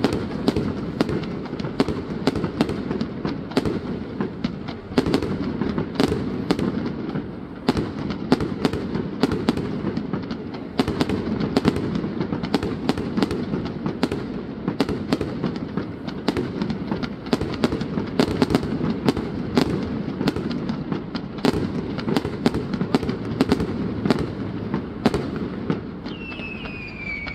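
Fireworks display going off continuously: rapid sharp bangs and crackles, several a second, over a steady rumble of bursts. A short falling whistle comes near the end.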